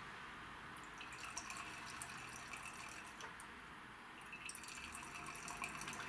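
Petrol trickling and dripping faintly from a 50cc moped scooter's disconnected fuel line into a glass jar. It is a weak stream, the sign of a restriction in the fuel flow.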